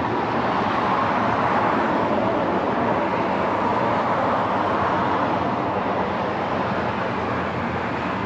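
Steady rushing road-traffic noise that swells a little and eases off again.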